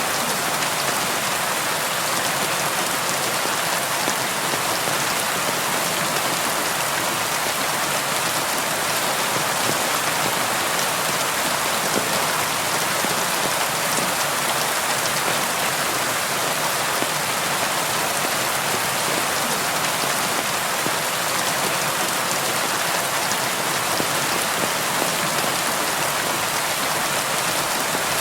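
Steady rain falling and pattering on window glass, a dense even hiss with fine drop ticks, unchanging throughout.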